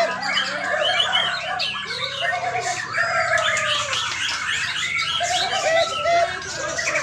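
Many caged songbirds singing over one another, a dense unbroken chorus of short chirps and arching whistles.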